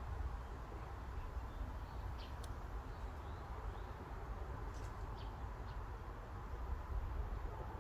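Steady forest wind with a low rumble, and a few short, high bird chirps scattered through it, about two and five seconds in.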